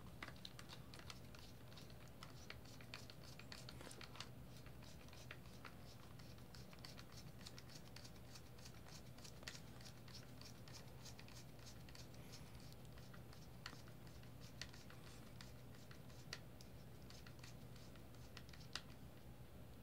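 Faint, irregular clicking and scratching of a screwdriver tightening a small machine screw through stacked acrylic case plates, a handful of clicks a little louder than the rest.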